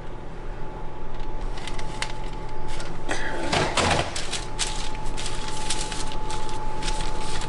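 Parchment paper rustling and crinkling under fingers as lime slices are pressed and shifted on a sheet tray, with irregular light clicks and taps and a louder knock a little past three and a half seconds.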